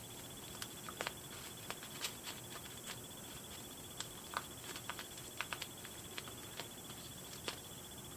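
Faint, irregular small clicks and taps of a fashion doll being handled and fitted onto its doll stand.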